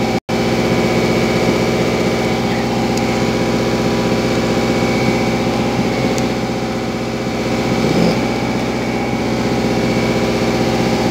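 A motor running steadily with an even, unchanging hum; the sound cuts out for an instant just after the start.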